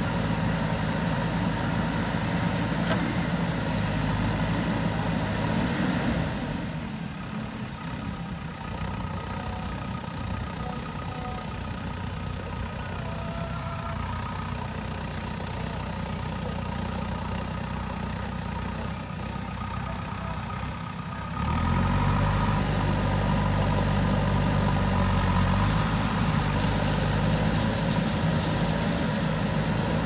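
JCB backhoe loader's diesel engine running as it works the backhoe arm. About six seconds in the engine settles lower and quieter, and about two-thirds of the way through it picks up suddenly and runs loud again.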